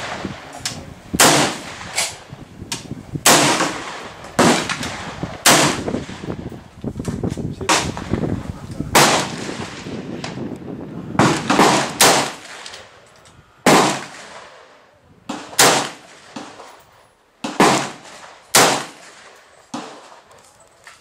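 Colt AR-15 SP1 semi-automatic rifle in .223 firing single shots at a slow, uneven pace, some fifteen shots about one to two seconds apart, each crack trailing off in a short echo.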